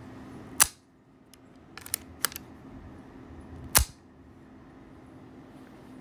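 Marlin Model 60 .22 rifle's action being worked by hand: a loud metallic clack under a second in, a few lighter clicks around two seconds, and another loud clack just before four seconds.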